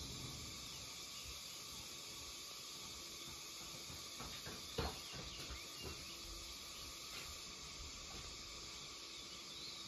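Faint steady high-pitched background hiss, with a few soft short ticks, the loudest about five seconds in.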